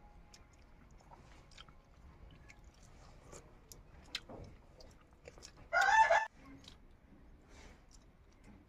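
Quiet sounds of eating by hand, faint clicks of fingers working rice and curry and chewing, broken just before the middle by one loud, short chicken call lasting about half a second.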